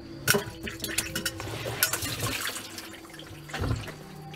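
Water sloshing and trickling inside a front-load washing machine, with a faint steady hum and several short knocks.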